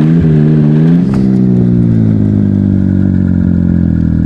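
Turbocharged Yamaha Sidewinder snowmobile's three-cylinder four-stroke engine, revving up to a peak about a second in. The throttle then comes off and it winds down, its pitch falling slowly and steadily.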